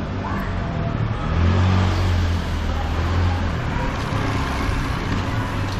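Street traffic: a motor vehicle's engine hums close by, swelling from about one and a half seconds in and easing off again about two seconds later, over steady road noise.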